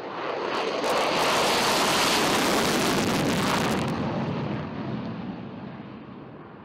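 Single-engine F-16 fighter jet taking off on afterburner: loud jet engine noise that builds over the first second and holds, then dulls and fades from about four seconds in as the jet climbs away.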